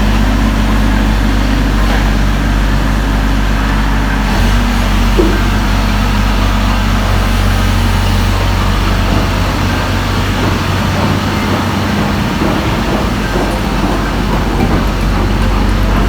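Diesel engine of heavy machinery running steadily, a constant low hum.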